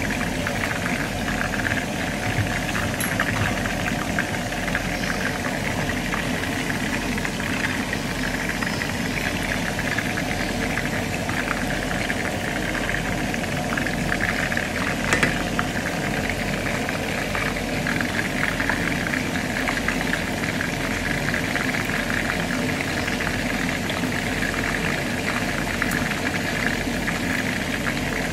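Meat frying in hot oil in a nonstick pan: a steady, dense sizzle with fine crackling.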